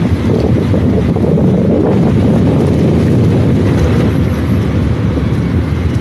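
Wind buffeting the microphone: a loud, steady low rumble that covers everything else.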